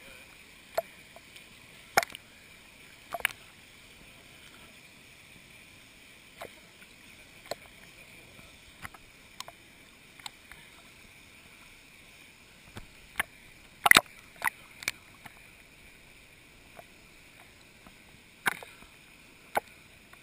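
Small waves lapping and slapping against a camera held at the water's surface, giving irregular sharp splashy knocks about every second or two, the loudest a cluster about 14 seconds in, over a faint steady hiss.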